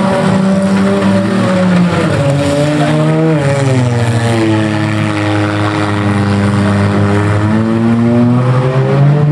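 Engines of several demolition derby cars running and revving together, their pitch dipping about three seconds in, climbing again, then slowly falling and rising once more near the end.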